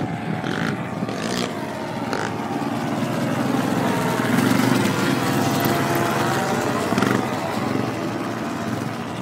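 Paramotor trike's engine and propeller running steadily as the trike moves across sand, growing louder about halfway through and then easing off a little.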